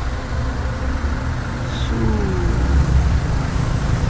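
Street traffic rumbling steadily, with a passing vehicle's engine note falling in pitch about two seconds in.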